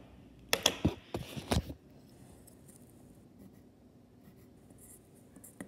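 Pencil writing on a paper worksheet: a few quick, scratchy strokes in the first couple of seconds, then only faint sound.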